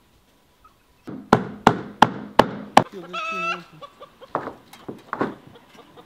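Hammer driving nails: five sharp strikes about three a second, then lighter, irregular knocking. Between them a hen gives one short, wavering call.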